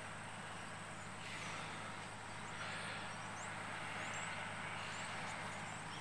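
Faint, steady outdoor background: an even low hum with a few brief, high rising chirps scattered through it.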